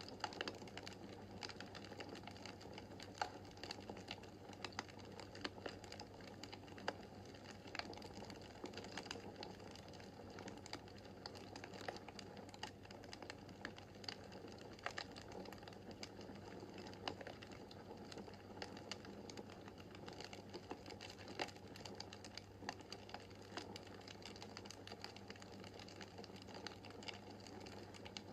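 Wood fire in a fireplace crackling, with many small irregular pops over a steady low rumble.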